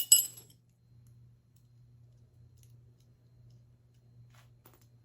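A sharp metallic clink of metal hardware or tools being handled, ringing briefly at the start, followed by a faint steady low hum and a few faint clicks near the end.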